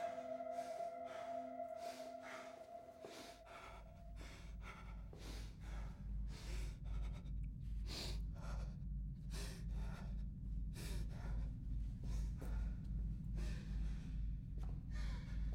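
Horror-drama soundtrack: a held tone fades out in the first few seconds, then a low, regular pulse starts, about two beats a second, under a person's heavy breathing and gasps.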